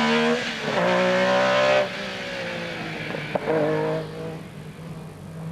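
Metro 6R4 rally car's V6 engine accelerating hard, with a quick upshift about half a second in and the revs climbing again before it lifts off near two seconds. A sharp pop a little past three seconds, a short blip of revs, then the engine fades as the car moves away.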